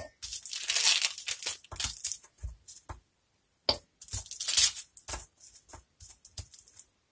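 Baking paper crinkling and crackling as set hard-candy throat lozenges are peeled off it, with scattered light clicks of the hard candies.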